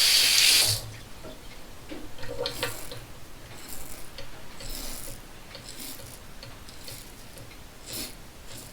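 Running water stops under a second in, followed by a series of short scratchy strokes of an Edwin Jagger DE89KN double-edge safety razor scraping stubble, spaced roughly a second apart.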